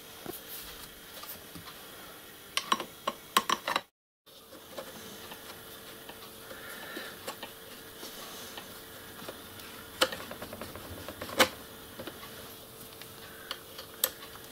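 Metal parts clicking and clinking as a hand-made change-wheel quadrant arm is fitted onto a small lathe's headstock: a cluster of sharp clicks about three seconds in, then louder single clicks about ten and eleven seconds in, over a faint steady hum.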